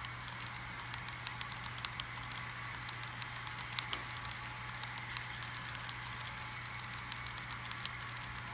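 Model freight cars rolling past on layout track: a dense, irregular patter of small clicks from the wheels on the rails over a steady hum, with a couple of sharper clicks about four seconds in.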